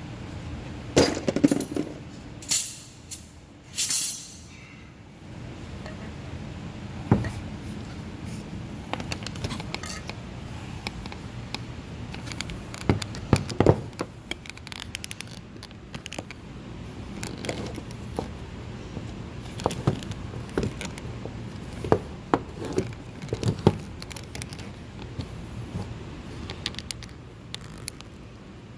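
Scattered metallic clinks and knocks of hand tools and parts being handled. There are a few louder, short noisy bursts in the first four seconds.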